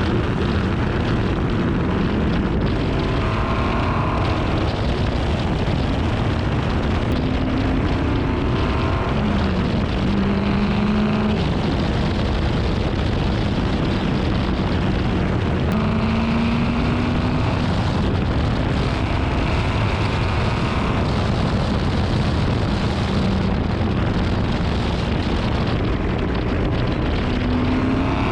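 A car being driven, with its V-type engine pulling under load over steady road and wind noise. The engine note climbs and then drops back several times as it goes through the gears, running on freshly replaced spark plugs and coils fitted to cure a misfire.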